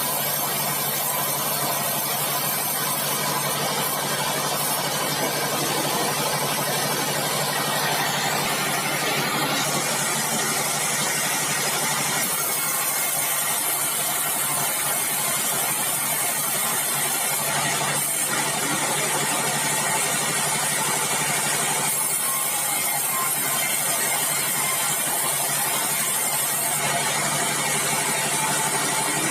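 Sawmill bandsaw machinery running steadily, a constant mechanical drone with a low hum under it.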